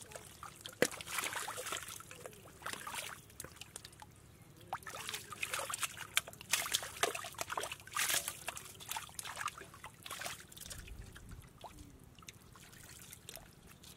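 Muddy water being scooped and poured out with a small metal bowl, splashing and trickling in irregular bouts, with hands working through wet mud.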